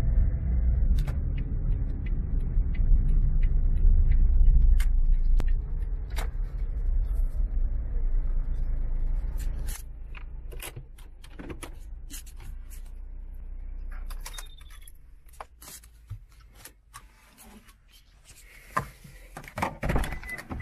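Low rumble of a car on the move, which fades about halfway through as the car slows and stops, followed by scattered clicks, knocks and rattles of handling inside the car and a short beeping tone near the end.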